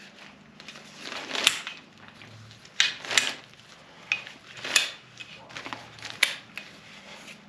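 Cliq compact camping chair being unfolded by hand: its metal legs and frame joints clack and click as they are pulled apart and set in place, about five sharp clicks spread over several seconds, with the seat fabric rustling between them.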